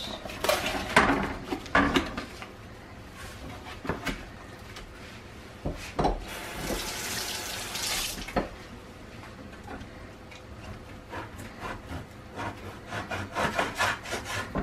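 Kitchen tap running into a sink for about two seconds midway, between clicks and knocks of a plastic-wrapped meat tray being handled. Near the end, a chef's knife taps quickly against a plastic cutting board as beef shank is cut into small pieces.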